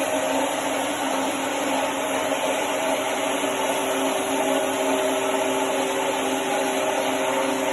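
Roll RO-2200 single-disc floor machine running steadily while sanding a troweled mineral floor: an even motor hum with the hiss of the abrasive working the surface.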